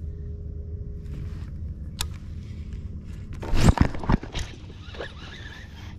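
Handling noise on the camera: a low, steady rumble, a single sharp click about two seconds in, then a loud burst of rubbing and thumps near four seconds as the angler's sleeve and arm brush right against the camera.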